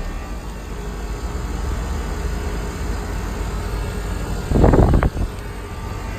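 Trane XB air-conditioner condensing unit running, its compressor giving a steady low hum. A brief, loud burst of noise about four and a half seconds in is the loudest thing heard.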